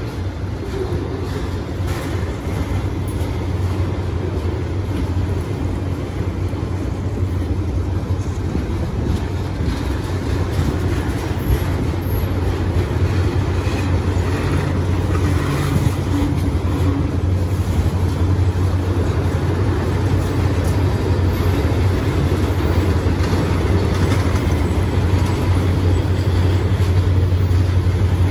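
Freight train of loaded welded-rail flatcars rolling past: a steady rumble of steel wheels on the rail under a low drone, both slowly getting louder as a diesel locomotive at the far end of the train draws nearer.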